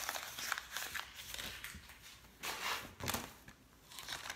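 Paper slips and a plastic document folder rustling and crinkling as they are handled, with two louder rustles a little past the middle.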